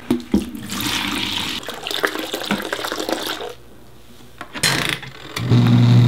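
Soapy water draining from a portable washing machine's hose and splashing into a plastic bucket. The water runs for about three seconds, eases off, and a short splash follows. Near the end a steady low hum sets in.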